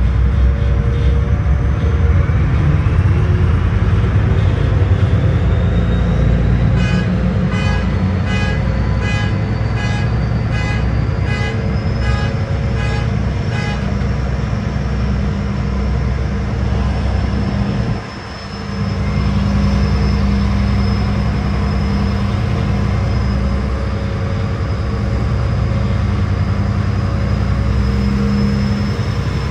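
Steady low rumble of a ferry's engines, with a whine that rises over the first several seconds. Partway through, a run of evenly spaced beeps sounds, about two a second, for several seconds.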